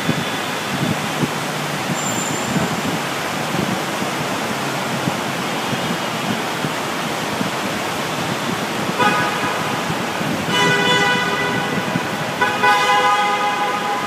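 Car horns honking in a road tunnel over steady traffic noise: three blasts from about nine seconds in, the last two longer and louder.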